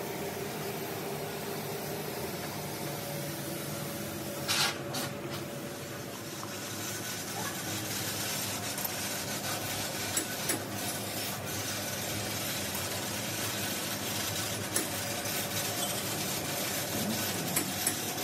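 Machine tool running and cutting into the steel of an excavator breaker chisel: a steady cutting noise over a machine hum. A few sharp metallic clinks break through, the loudest about four and a half seconds in.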